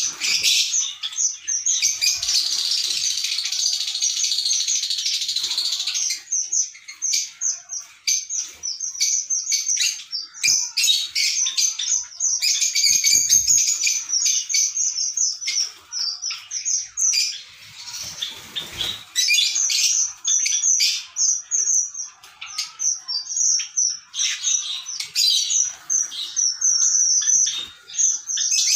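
Lovebirds chattering in a steady stream of rapid, high-pitched chirps, with a brief rustle about two-thirds of the way through.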